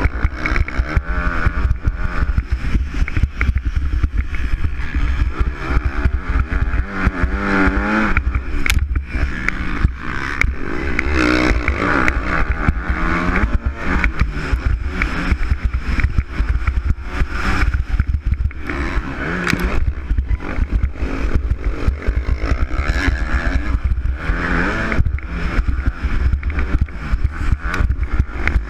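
Motocross bike engine heard from on board, its revs rising and falling repeatedly through the gear changes and corners, with heavy wind noise on the microphone.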